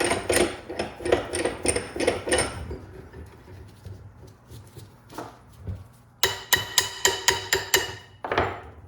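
A hammer striking the steel yoke and U-joint cross of a double Cardan drive shaft joint, trying to drive out a stubborn cross and bearing caps. It lands a run of ringing metal blows, about three a second, then a single blow, then a faster run of about eight blows near the end.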